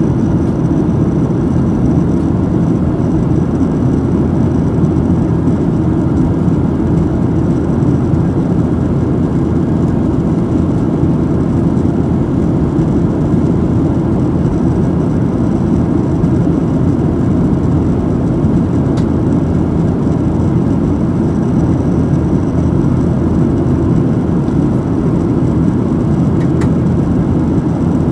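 Steady cabin noise inside a Boeing 737-700 in flight: a low rush of airflow mixed with the drone of its CFM56-7B turbofan engines, with a faint high, steady whine above it.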